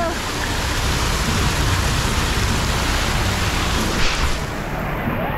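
Steady rush of water spraying and splashing down from the jets and fountains of a children's splash-pad play structure.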